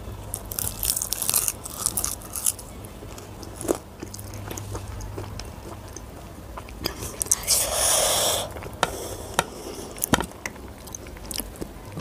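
Close-miked eating: biting into a puri and chewing it with wet mouth clicks and smacks, with a louder noisy burst about eight seconds in.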